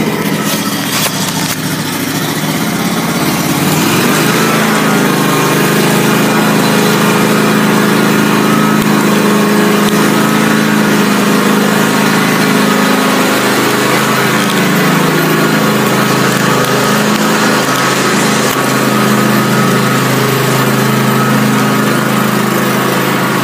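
Small riding lawn tractor engine picking up speed over the first few seconds, then running steadily under way.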